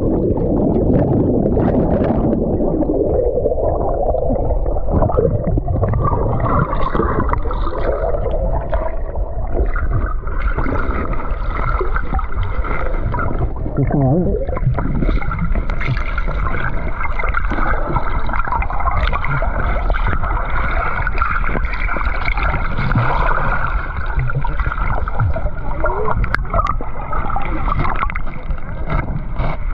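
Water of a stream cascade rushing and gurgling, loud and steady.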